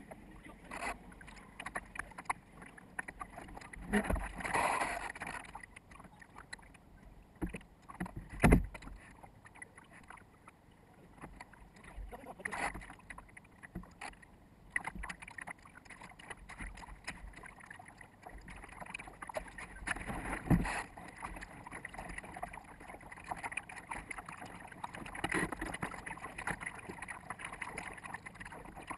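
Water splashing and slapping against the bow of a small sailboat under way, with wind on the microphone and a few louder knocks against the hull. The sound is sped up fourfold, so it comes as a fast crackling wash.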